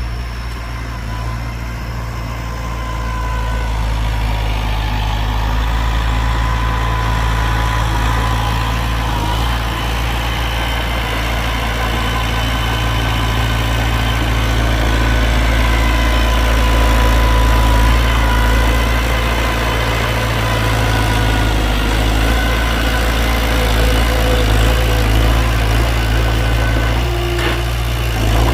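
Heavy diesel engine of earthmoving machinery running steadily with a low rumble and a thin whine above it, growing a little louder over the first half.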